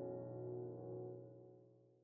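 Background music: a soft, sustained keyboard chord that fades out about a second and a half in.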